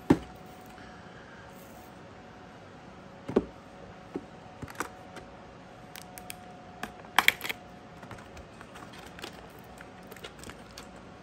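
Cardboard booster boxes being handled and a small knife slitting their plastic shrink wrap: scattered light taps and clicks, with a louder knock about three seconds in and a quick cluster of clicks about seven seconds in.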